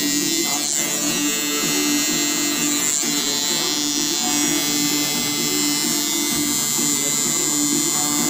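Electric tattoo machine buzzing steadily as its liner needle runs lines into an EVA foam practice sheet.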